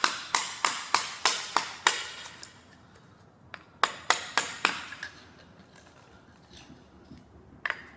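Hammer striking a steel flat-blade chisel, metal on metal, driving it into a glued-down hardwood floor plank to chip it out: a quick, even run of blows about three a second for two seconds, a short burst of about five more near four seconds in, and a single blow near the end.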